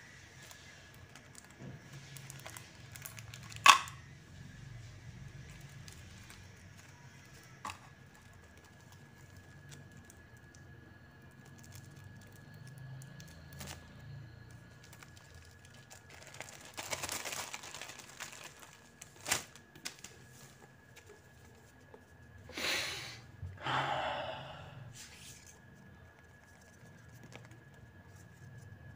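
Plastic shrink-wrap being torn and peeled off a paperback book, with scattered crinkles and handling taps. The loudest sound is a sharp click about four seconds in. Later comes a longer rustle of plastic, then two short rustling tears near the end.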